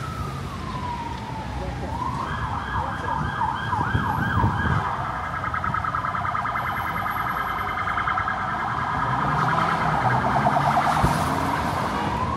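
Emergency vehicle siren changing its pattern: a slow wail falling in pitch, then about two seconds in it switches to a fast yelp of about three sweeps a second, which quickens into a rapid warble through the middle, before returning to a slow rising wail near the end.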